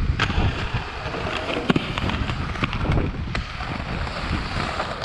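Inline skate wheels rolling over concrete, with wind on the microphone, broken by several sharp clacks as the skates strike and grind a concrete ledge.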